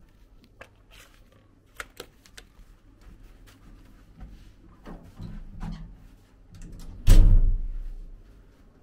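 A few small plastic clicks as a key card goes into a hotel room's card-key power slot, then handling and movement noise. About seven seconds in comes a heavy, deep thud that dies away over about a second, like a room door swinging shut.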